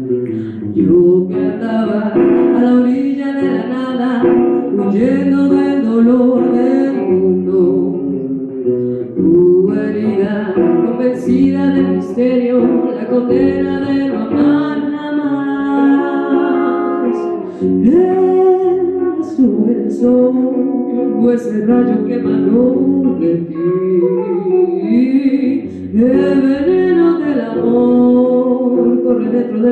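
Live song: a woman sings into a microphone over guitar accompaniment, her voice gliding and holding long notes.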